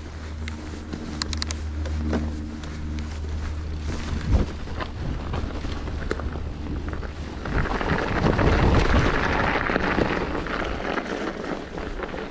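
Mountain bike rolling over a snowy trail on Schwalbe Ice Spiker studded tyres: tyre noise and small rattles, with wind buffeting the microphone and a low steady hum underneath. It swells into a louder rush of wind and tyre noise about seven and a half seconds in, easing off a few seconds later.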